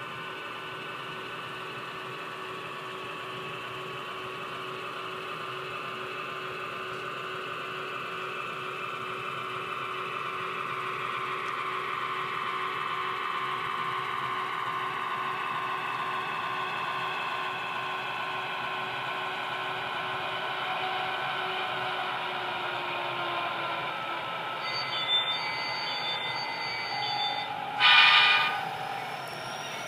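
HO scale model diesel locomotives running slowly along the track: a steady whirring hum of several tones that drift slowly in pitch. Near the end a short, loud blast of stacked tones stands out above it.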